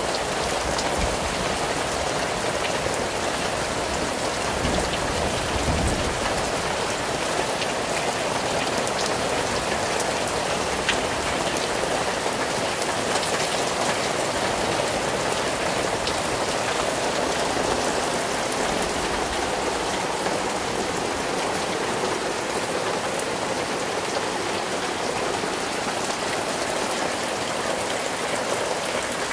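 Steady rain falling, an even hiss made up of many small drop ticks.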